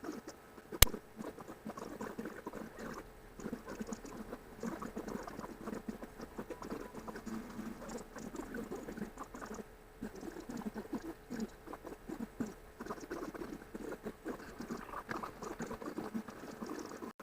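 Fast-forwarded sound of a cat and her kittens: a dense, rapid patter of small chattering and rustling noises, with one sharp click about a second in.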